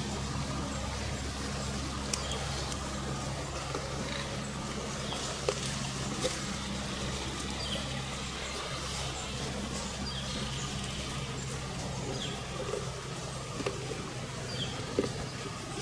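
Woodland ambience: a steady low hum under a few faint, high bird chirps, broken by several sharp clicks or snaps.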